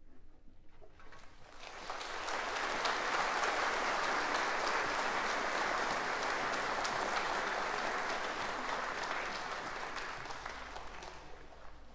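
Concert audience applauding, swelling up about two seconds in and dying away near the end.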